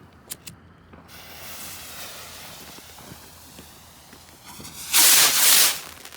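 A firework fuse hisses and sizzles steadily for a few seconds. About five seconds in the firework goes off with a loud rushing burst lasting nearly a second.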